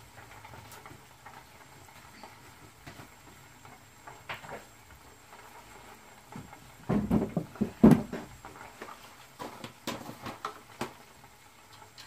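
Plastic spice containers being handled and a jar opened: scattered light clicks, then a cluster of sharper clicks and knocks about seven to eight seconds in, with a few more after.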